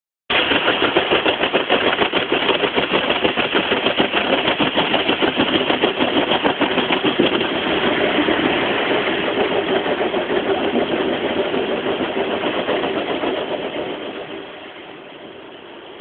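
Automatic car-wash machine working over the car, heard from inside the cabin: a loud, dense wash of noise with a rapid pulsing that eases about seven seconds in and dies down about fourteen seconds in.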